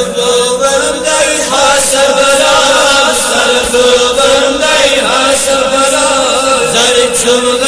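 A group of men chanting a Kashmiri naat in unison, drawing out long held notes.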